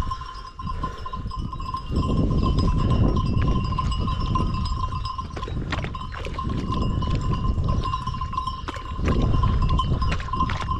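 Bells on a grazing flock of sheep ringing steadily and blending together, over a low rumbling noise and scattered clicks.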